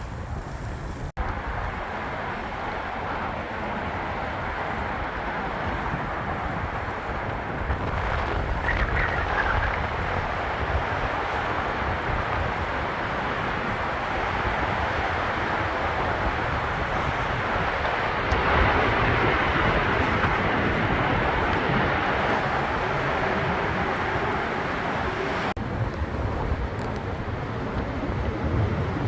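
Steady rushing noise recorded while riding a bicycle: wind on the microphone over road and traffic noise. The sound changes abruptly about a second in and again near the end.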